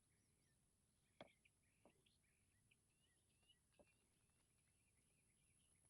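Near silence: faint distant bird chirps, with a few soft clicks.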